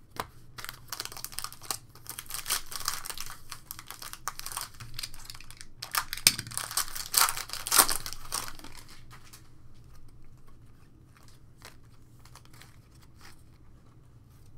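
A Panini Prizm baseball card pack's foil wrapper being torn open and crinkled, loudest a few seconds before the crinkling stops about two-thirds of the way through. After that come only a few faint ticks as the cards are handled.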